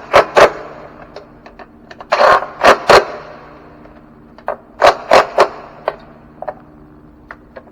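Hand ratchet clicking in short bursts, with pauses between, as the throttle body's small 8 mm-head bolts are snugged down in a crisscross pattern.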